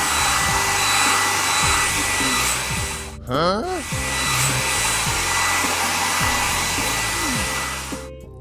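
Cartoon air-blower dryer sound effect: a steady loud rush of air with a faint high whine. About three seconds in, a short rising, whistle-like cartoon effect briefly breaks in. The blower cuts off shortly before the end. Soft background music plays underneath.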